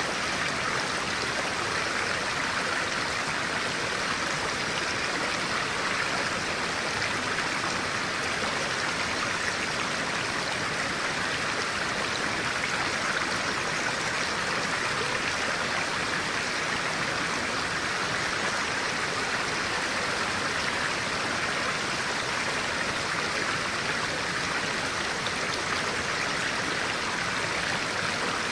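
Clear-water stream flowing and rushing over rocks, a steady, even wash of water noise.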